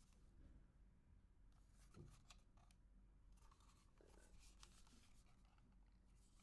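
Faint handling noise from a Zoom H5 handheld recorder being turned over in the hands: small plastic clicks and rubbing, with one soft bump about two seconds in.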